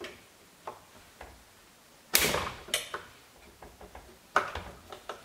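Flathead screwdriver prying at the plastic clips that hold the xenon ballast to a Tesla Model S headlight housing: scattered plastic clicks and knocks, the loudest a sharp click about two seconds in.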